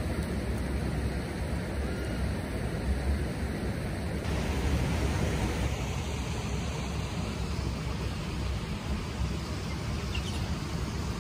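Steady outdoor rushing noise with a deep rumble underneath and no distinct events; its tone shifts abruptly about four seconds in and again about six seconds in.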